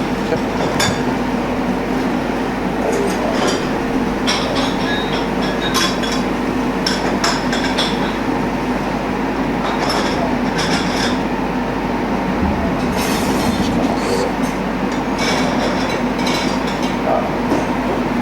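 Steady hum of kitchen ventilation, with scattered light clinks and taps of utensils on a plate while smoked haddock is skinned and picked apart.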